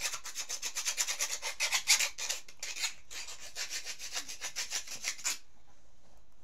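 Hand file rasping in quick back-and-forth strokes across a piece of cuttlefish bone, grating it to a calcium powder. The strokes stop about five seconds in.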